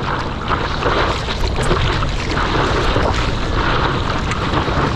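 Wind buffeting an action camera's microphone over the wash of ocean surf: a steady, rough rush of air and water.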